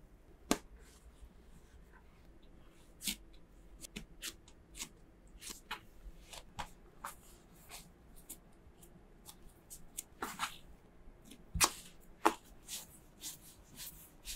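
Soft bread dough handled by hand: pulled from a glass bowl, then folded and rounded on a wooden cutting board, giving scattered short taps and slaps of dough and palms against the board, one or two a second, with a louder pair near the end.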